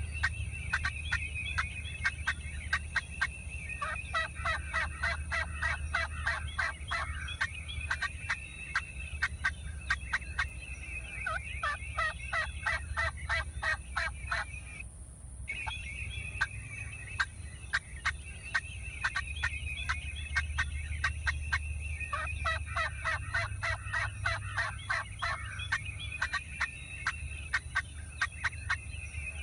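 Wild turkey yelping in three runs of quick repeated yelps, each a few seconds long. Under it run a steady high-pitched buzz, dense fast ticking and a low rumble.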